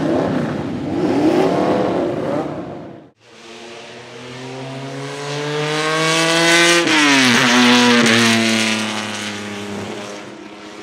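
1975 BMW 3.0 CSL Group 2's 3.2-litre fuel-injected straight-six being blipped with short rises and falls in revs. After a sudden cut, the car accelerates toward the listener with its engine pitch climbing, passes close, and drops sharply in pitch as it goes by, then fades away.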